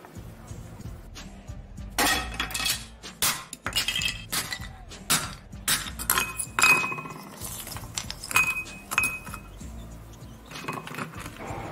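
Thin wooden sticks snapping and the splinters clattering into a small ceramic cup: a run of sharp cracks and clicks, a few leaving a brief high ring from the ceramic. Faint background music runs underneath.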